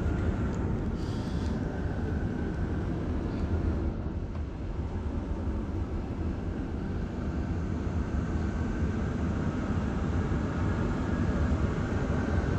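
Steady low rumble with a faint hum running evenly throughout.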